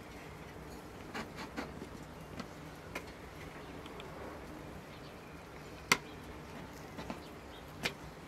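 Faint handling sounds as fingers roll dough strips on a wooden pastry board: scattered light clicks and taps over a steady background hiss, with one sharp tap about six seconds in and another near the end.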